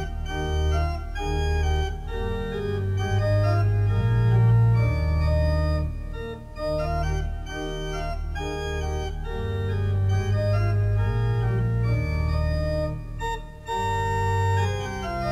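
Organ music: held chords over a bass line that moves from note to note every second or so, with a brief dip near the end.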